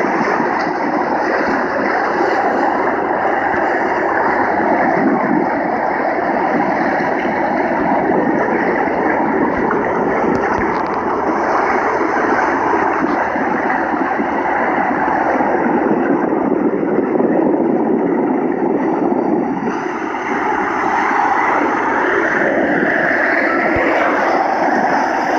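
Steady, loud rushing noise with a low rumble, the wind-and-water soundtrack of a shoreline video played back through a phone noise-reduction filter. Its tone shifts about twenty seconds in.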